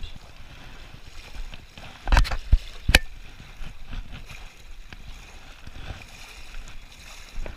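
Legs wading through river water, with steady sloshing and swishing, broken by three sharp knocks about two to three seconds in.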